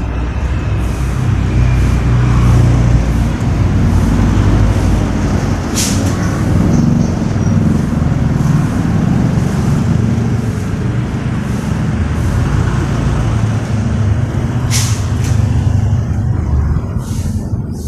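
A power hedge trimmer running steadily as it cuts the top of a Eugenia hedge, with a couple of sharp clicks. It eases off near the end.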